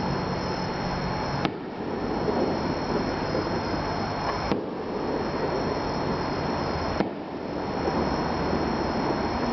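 Aerial firework shells bursting at a distance: three sharp bangs roughly two and a half seconds apart, over a steady rushing background noise.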